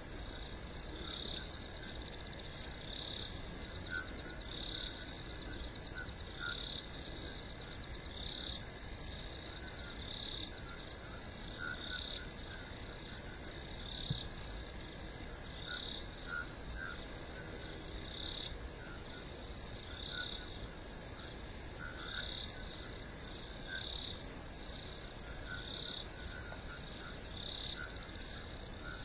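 Night chorus of frogs and insects: a steady high trill, with louder calls repeating about once a second.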